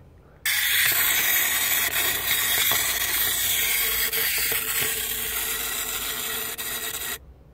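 Wind-up spring motor of a small toy MTR train whirring steadily as it unwinds, starting about half a second in and cutting off suddenly near the end.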